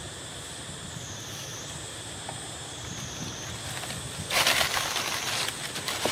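Dry leaves rustling in a burst of about a second a little past halfway, with a shorter rustle near the end. Under it runs a steady high-pitched drone that dips in pitch every couple of seconds.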